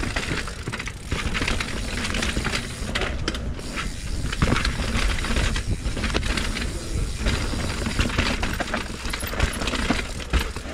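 Steel hardtail mountain bike descending a rough, bumpy trail: a steady rushing hiss from tyres and moving air, broken by constant irregular clatter and knocks as the wheels hit rocks and roots and the frame and chain rattle.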